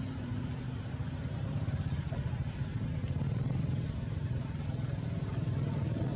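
Steady low hum of a motor vehicle engine running, growing a little louder about two seconds in.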